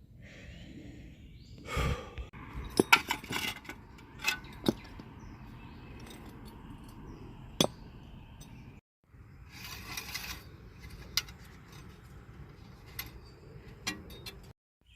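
Metal tools and car parts clinking and knocking as they are handled, with a cluster of sharp metallic clinks a couple of seconds in and single clinks later, over a steady background hiss.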